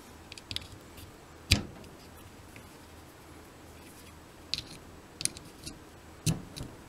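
Small clicks and taps of wire crimp terminals being pushed onto the terminals of plastic 12 V cordless-tool battery packs. Two louder sharp knocks come about one and a half seconds in and near the end.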